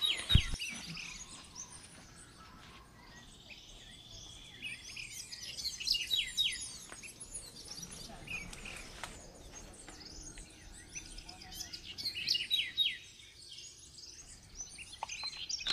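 Wild birds chirping and calling in tropical forest, many short quick calls coming in clusters. A brief thump at the very start is the loudest sound.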